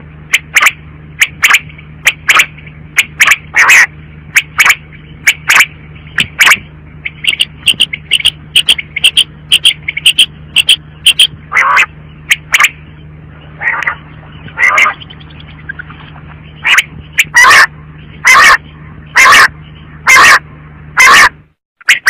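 Female common quail calling: short, sharp calls repeated at uneven spacing, a quick run of them in the middle and about one a second later on, some very loud. A steady low hum runs underneath and stops near the end.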